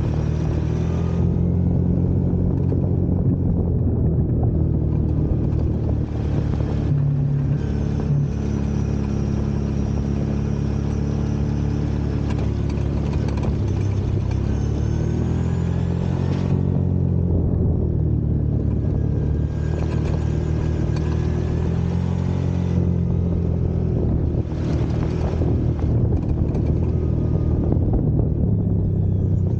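Off-road vehicle engine running under way, its pitch rising and falling with the throttle, with stretches of rushing noise coming and going over it.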